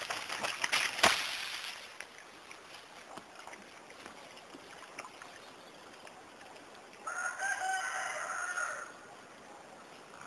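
Muscovy duck and rooster scuffling in dry leaves: sharp flaps and rustling for the first two seconds, then quieter. About seven seconds in, a rooster gives one drawn-out call of nearly two seconds.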